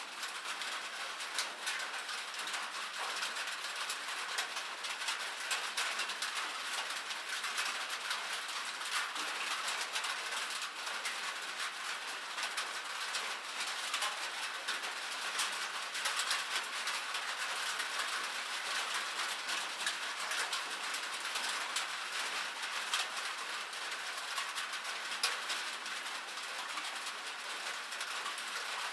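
Light rain falling steadily, a dense patter of countless small drops ticking without a break.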